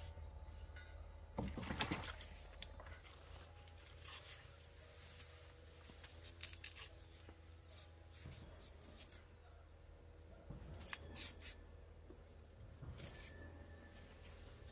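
Quiet handling noises, rustles and scrapes, with one louder rustle about a second and a half in and a few smaller ones later, over a steady low hum.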